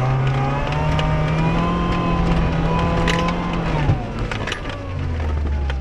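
Mercedes car's engine pulling hard at high, steady revs, heard from inside the cabin; about four seconds in the revs drop sharply. Sharp knocks from stones and bumps of the gravel track hit the car throughout.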